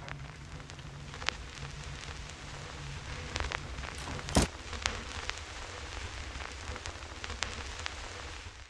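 Irregular crackles and pops over a steady low hum, with a louder pop about halfway through. The sound cuts off suddenly at the end.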